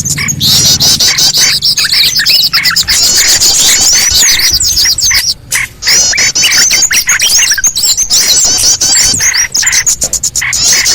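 Bird-lure recording of many small songbirds chirping and calling at once: a dense, loud, continuous mass of high, quick overlapping chirps and twitters, briefly dropping out about five seconds in.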